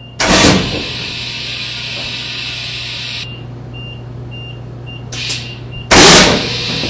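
A hockey puck slamming into a skate boot twice: a loud bang just after the start on the Nike Bauer One95 skate, then the loudest bang about six seconds in on the Easton Stealth S15 skate, with a smaller hit just before it. Between the hits there is a steady hiss and low hum with faint short beeps about twice a second.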